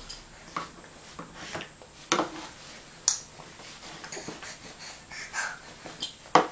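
A baby breathing and making small snorting mouth noises while being spoon-fed. A few sharp taps or knocks come about two, three and six seconds in.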